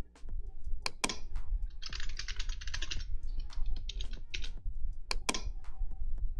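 Computer keyboard typing: a few single key clicks, then a quick run of keystrokes about two seconds in and a shorter run a second later, as a password is typed in.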